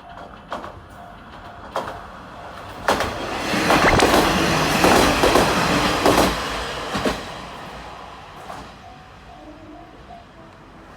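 A level-crossing warning bell dings steadily while a JR Misumi Line diesel train passes, its wheels clicking over the rail joints. The train is loudest from about three to six seconds in, then fades, and the crossing bell can be heard again near the end.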